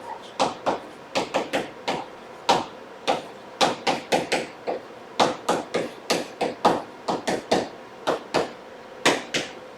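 Irregular sharp taps and knocks, two to four a second, of a writing tool striking a surface as a calculation is written out.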